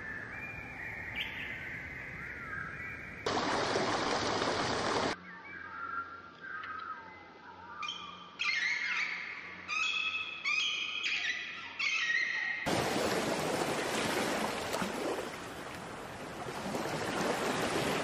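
Separate nature recordings cut together. A few bird calls come first, then a short burst of steady rushing noise. Then comes a run of clear, high whistled songbird phrases, several in a row, and then a long stretch of loud steady rushing noise.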